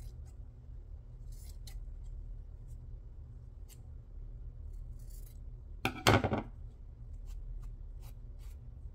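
Scissors snipping with light clicks and rustles of paper and fabric being handled, and one louder clunk about six seconds in.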